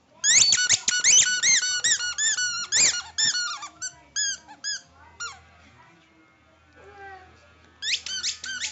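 Loud, high-pitched squeaks in rapid series, about six a second at first, thinning out and stopping about five seconds in, then starting again near the end.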